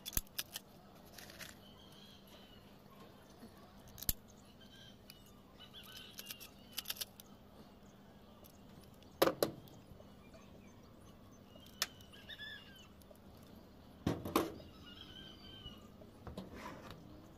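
Hand tools handled and set down on a corrugated sheet-metal roof: scattered sharp metallic clinks and knocks, the loudest about nine seconds in and a quick cluster around fourteen seconds.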